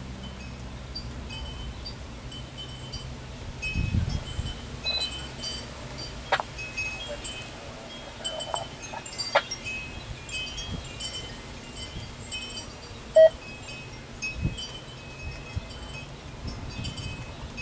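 Wind chimes ringing on and off in the breeze: short, high metallic tones that come back at the same few pitches. A brief low rumble comes about four seconds in.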